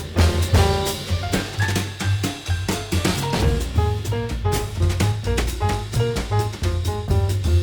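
Background jazz music with a drum kit keeping a steady beat, a walking bass line and melody notes.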